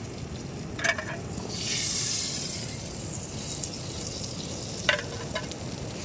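Butter sizzling in a pan over a gas stove flame, a steady hiss that swells louder for about a second roughly two seconds in.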